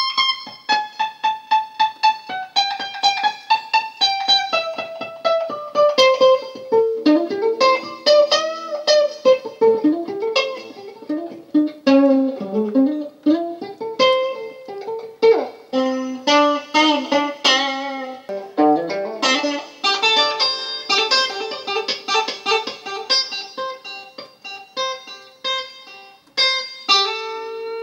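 Electric guitar played lead, with fast runs of single plucked notes and several bent notes.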